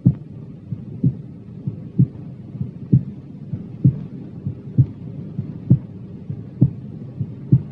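Normal human heart sounds recorded through a stethoscope at the aortic auscultation point (second right intercostal space): paired first and second tones, lub-dub, a short pause within each pair and a longer one before the next, at just over one beat a second.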